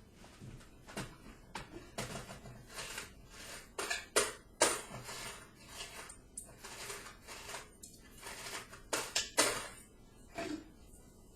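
Quarters run through a payphone's coin chute, clinking and clattering against the metal parts in a string of irregular knocks, with two louder clacks about four and a half and nine and a half seconds in.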